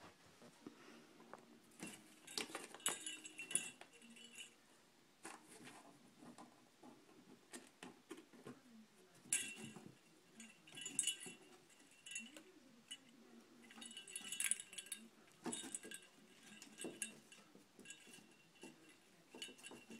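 A small jingling cat toy hanging in a cardboard box doorway jingles in short bursts as a kitten bats at it, several times over. Soft scuffs of paws on cardboard come in between.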